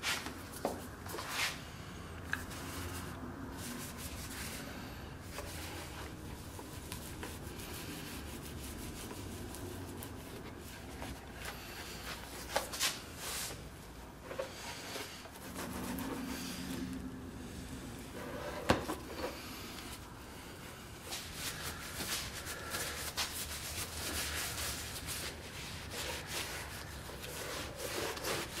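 A sponge and cloth rubbing a dark paste finish into a hand-carved leather holster: soft, uneven scrubbing and wiping strokes, with a few sharp clicks and knocks as the jar and the holster are handled.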